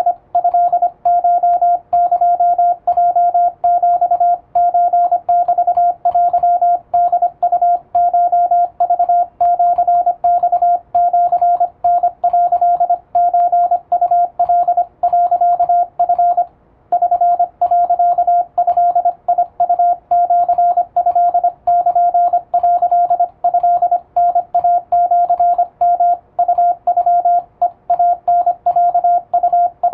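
Japanese wabun Morse code in plain text sent on an electronic keyer, heard as a steady sidetone beep of about 700 Hz keyed on and off in quick dots and dashes. There is a short pause about 17 seconds in.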